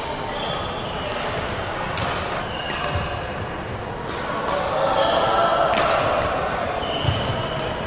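Badminton rackets striking the shuttlecock in a doubles rally, a few sharp clicks spaced irregularly, with short squeaks of sneakers on the wooden court floor over a steady background of hall noise.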